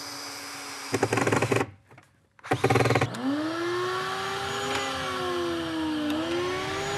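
Cordless drill/driver driving screws to mount a start/stop switch on a wooden bench, in two short bursts about a second and two and a half seconds in. From about three seconds on comes a sustained humming tone that slowly dips and rises in pitch.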